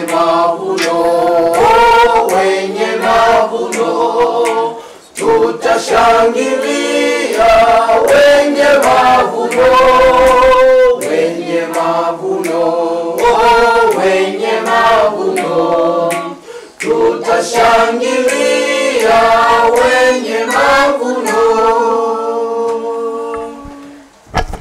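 A group of voices singing together a cappella in harmony, with brief breaks between phrases about five seconds in and about seventeen seconds in. The singing dies away just before the end.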